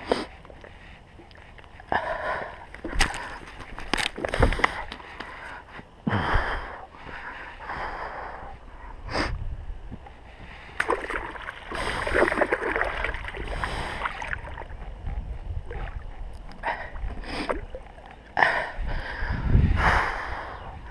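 Fish being emptied from a mesh keepnet back into a lake: irregular splashing and sloshing of water in several surges. Between them come a few sharp knocks and rustles as the wet net is handled.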